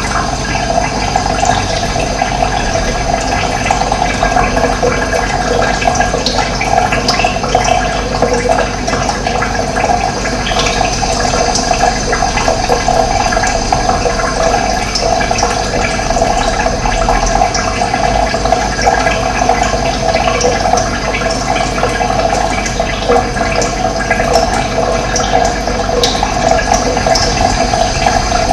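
Running water flowing steadily, with a loud, even rush.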